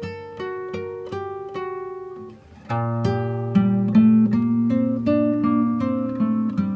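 Instrumental acoustic guitar music: a run of single plucked notes, then fuller, louder chords over a low bass note from about two and a half seconds in.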